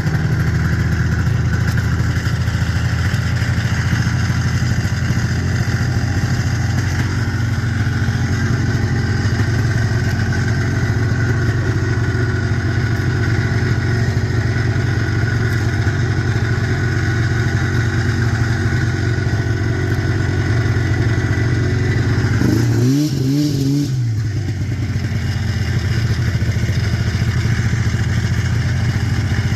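1990 Arctic Cat EXT 530 snowmobile's two-stroke twin engine running at a steady pitch. About three-quarters of the way through, its note briefly dips and wavers before settling back.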